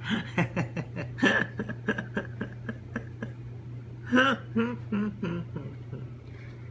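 Laughter in a quick string of short bursts, then a few more laughing syllables about four seconds in, over a low steady hum.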